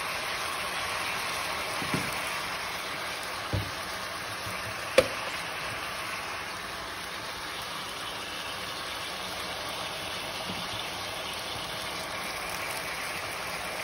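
Chicken breast strips frying in lard in a pan, a steady sizzle, with a few light clicks of a seasoning shaker or utensil against the pan, the sharpest about five seconds in.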